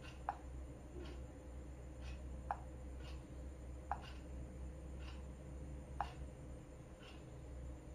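Four short, faint clicks about two seconds apart, with a few softer ticks between them: a smartphone's touch sounds as its screen is tapped through app menus, over a low steady hum.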